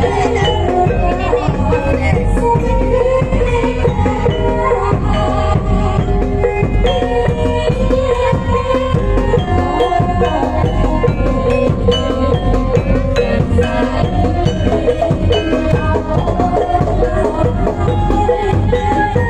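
Javanese traditional accompaniment for a barongan/dawangan dance: steady drum-led percussion with a held melody line running over it.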